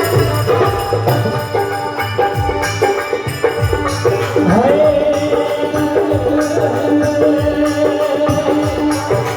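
Marwadi folk devotional music with jingling hand percussion keeping a steady beat under a melody. About halfway in, a long note slides up and is held.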